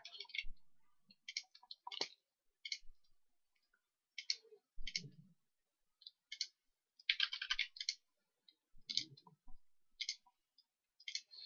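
Faint, irregular computer mouse clicks: single clicks spaced roughly a second apart, with a quick run of several clicks about seven seconds in.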